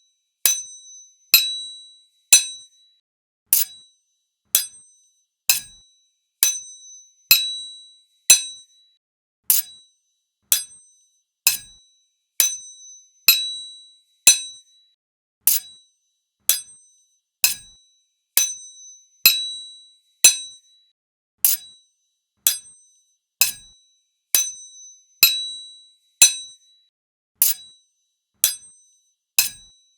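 Sword blades struck against each other, a sharp metallic clash about once a second. Each clash rings briefly in a few high tones and dies away quickly, some ringing a little longer than others.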